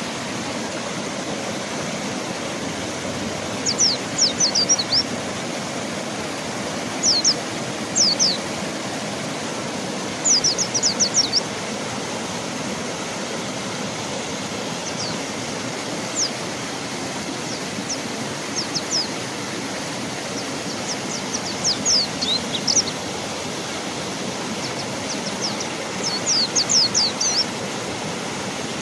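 Rushing river water as a steady wash, with a mountain white-eye (pleci gunung) calling over it in short, quick strings of high downward-swept notes, repeated every few seconds.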